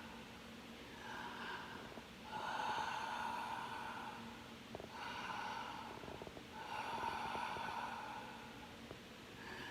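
A sleeping person breathing slowly through a stuffy nose, sniffly rushes of air in and out about every two seconds.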